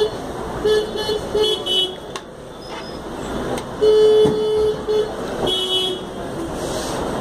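Vehicle horns honking: several short toots in the first two seconds, a longer one about four seconds in, and another near six seconds. Beneath them runs the steady sizzle of pakodas deep-frying in a kadai of hot oil, with street traffic noise.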